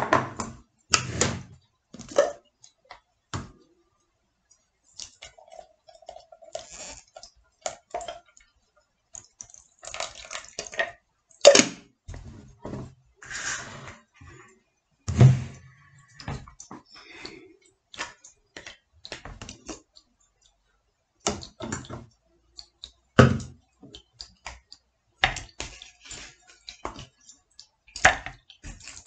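Irregular knocks, clinks and clatter of kitchenware being handled: a plastic blender jar set down and moved, a stainless steel pot with a strainer, and a metal spoon scooping red melon into the blender jar near the end.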